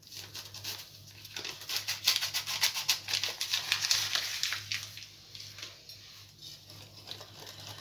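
A small paper sachet of baking powder being shaken and crinkled as its powder is tipped into a bowl of flour: a rapid rustling of many small crackles, loudest from about two to five seconds in, then dying away.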